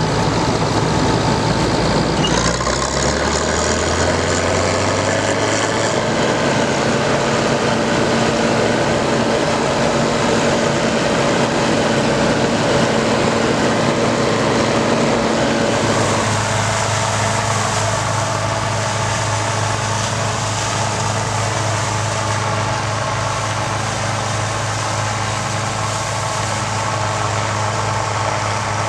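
Bizon Z056 Super combine harvester running, its six-cylinder diesel engine and threshing machinery heard up close from on top of the machine. A couple of seconds in, the pitch rises as it speeds up, then holds as a steady whine. About halfway through it changes to a lower, steadier drone as the combine is heard from out in the field.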